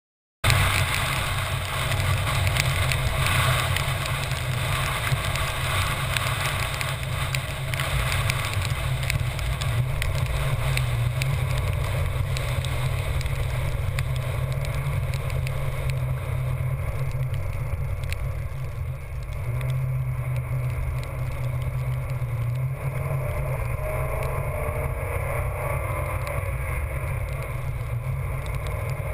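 Stormy wind rushing and buffeting over the microphone of a camera moving fast along a wet sand beach, with the steady rumble of the chase vehicle underneath. It cuts in suddenly about half a second in.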